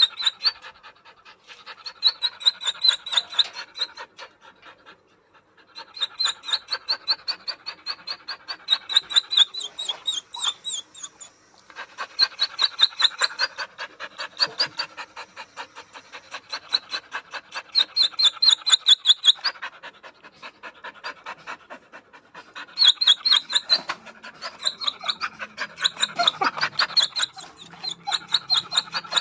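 A dog whining in high, quick rhythmic pulses mixed with fast panting. It comes in several long runs broken by short pauses.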